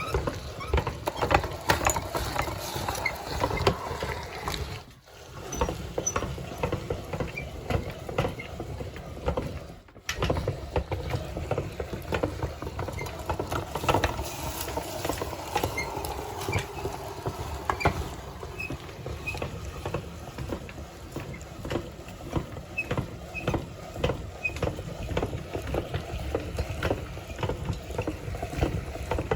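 Meat grinder grinding ice cream: a dense, continuous run of small clicks and crackles. It breaks off briefly about five and ten seconds in.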